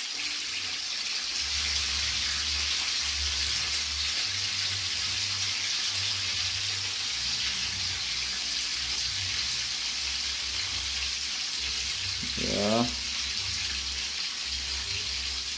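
Steady sizzle of sprat frying in a pot of hot oil, with a brief voiced hum from a person about twelve seconds in.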